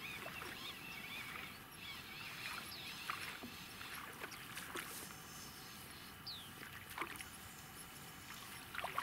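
Quiet riverbank ambience: small waves lapping at the bank, with scattered faint bird chirps and one falling whistle about six seconds in.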